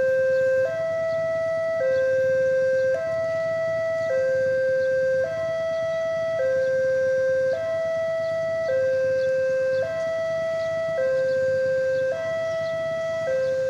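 Railway level crossing warning alarm sounding a steady electronic two-tone, low and high notes alternating about every second, signalling that a train is approaching.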